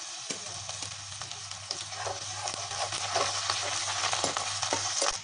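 Chopped garlic sizzling in hot mustard oil in a kadhai, with a spatula scraping and clicking against the pan as it is stirred.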